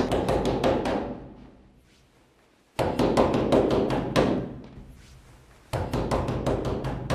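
Rapid pounding on a wooden apartment door, in three bouts about three seconds apart.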